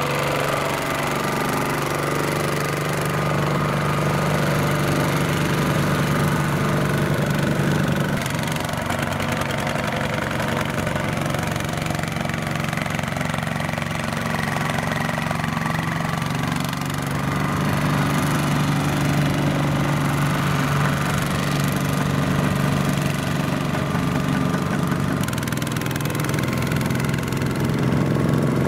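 Single-cylinder diesel engine of a two-wheel walking tractor running steadily under load as it hauls a trailer through sticky mud. Its note changes abruptly a few times.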